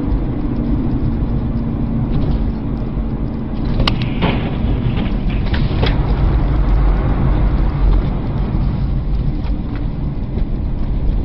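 A car driving on a snow-covered road, heard from inside the cabin through a dashcam microphone: a steady low engine and road rumble, with a few sharp clicks between about four and six seconds in.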